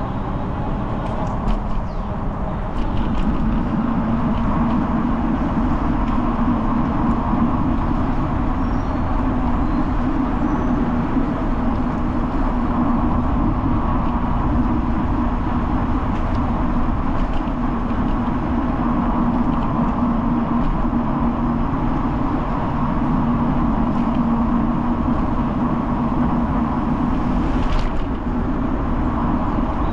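A vehicle running steadily: a continuous low rumble with a constant hum, unbroken for the whole stretch, and a brief sharper sound near the end.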